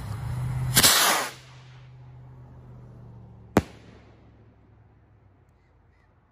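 Large firework rocket's motor rushing as it climbs, ending with a loud crack about a second in; about two and a half seconds later the rocket's shell heading bursts with a single sharp bang.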